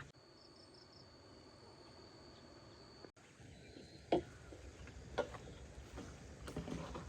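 An insect's steady high-pitched trill for about three seconds, stopping at an abrupt cut. It is followed by a few scattered sharp knocks or taps over a faint outdoor background.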